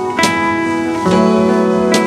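Background instrumental music: sustained notes that change to a new chord about a second in, with a short sharp hit near the start and another near the end.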